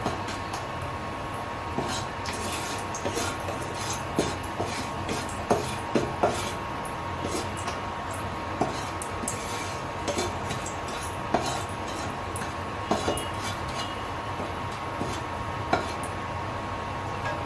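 Silicone spatula scraping and knocking against a nonstick kadai in irregular strokes while oil with caramelising sugar sizzles, with a steady tone underneath.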